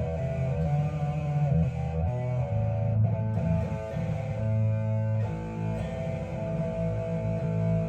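Electric guitar played through a heavily distorted amp-simulator tone, sustained notes and chords with a strong low end.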